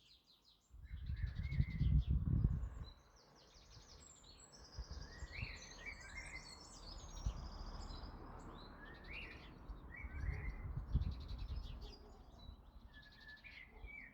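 Several small birds chirping and singing in quick, overlapping trills, with no one species standing out. A low rumble swells under them about a second in and again near the end.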